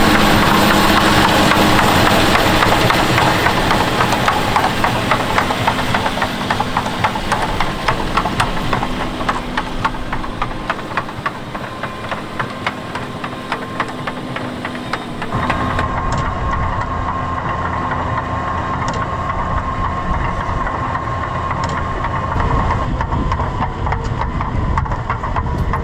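John Deere 6250R tractor's six-cylinder diesel engine running steadily while ploughing. About fifteen seconds in the sound changes abruptly, with a heavier low rumble and a steady higher tone.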